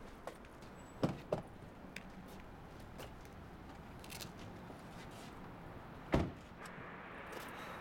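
A car door opening, with two latch clicks about a second in, then the door shut with a single heavy thud about six seconds in.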